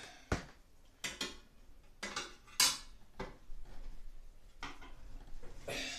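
Sheet-metal parts of a Broan 655 bathroom heater and exhaust fan clanking and scraping as they are hooked onto hanger ears and pushed up into place in the ceiling opening. It comes as a string of separate knocks and scrapes, the loudest about two and a half seconds in.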